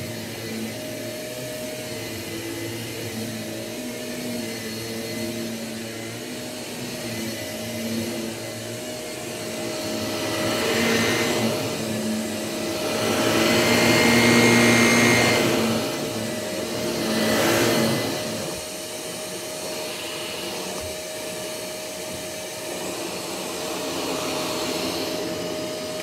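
Shark Navigator upright vacuum cleaner running steadily on carpet, its motor hum swelling louder several times as it is pushed back and forth, loudest when it passes right by.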